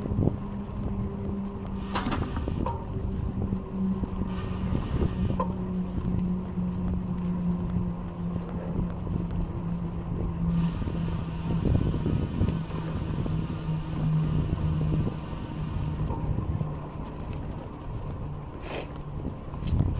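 Wind rushing over the microphone of a moving bicycle, with a steady low hum that slowly falls in pitch.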